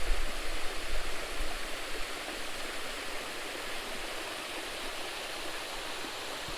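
Water rushing steadily over a small creek waterfall, an even hiss. There is some low rumbling in the first couple of seconds.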